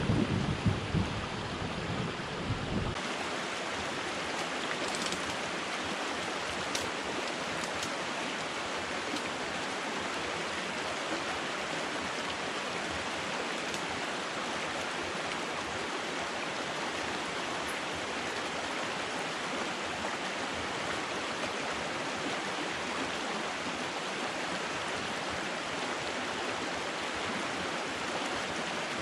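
Steady rushing of water, an even hiss with no distinct splashes. A low rumble sits beneath it for about the first three seconds and stops abruptly.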